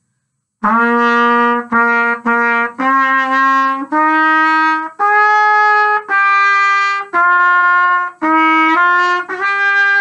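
Solo trumpet playing a slow melodic phrase of about eleven notes, some short and some held for about a second, ending on a held note.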